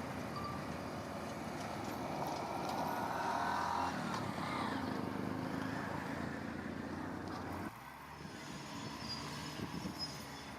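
Heavy earth-moving machinery engine running, with a whine rising about two to four seconds in; the sound drops suddenly about eight seconds in.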